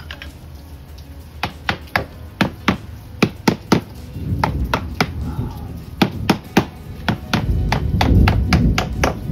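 Claw hammer tapping on a wooden window frame: a run of sharp, separate knocks, sometimes two or three in quick succession. Behind it a low rumble of thunder builds and is heaviest near the end.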